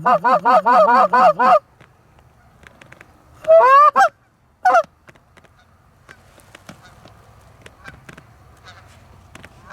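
Canada goose honking: a quick run of about nine clucking honks in the first second and a half, then a longer honk and a short one around four seconds in.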